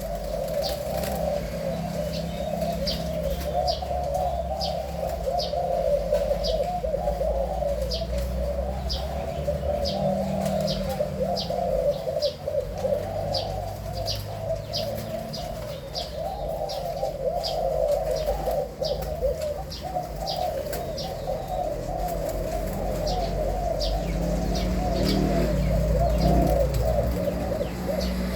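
Zebra dove of a white fancy colour form cooing continuously in rolling coos, with short high chirps about twice a second above it.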